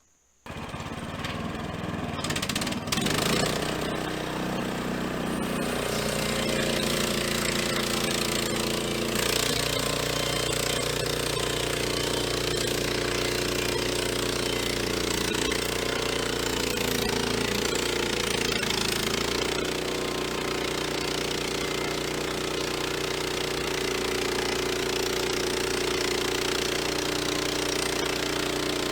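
Engine of an EZ Boardwalk Jr. portable band sawmill running, picking up speed about three seconds in and then holding steady with slight shifts in pitch.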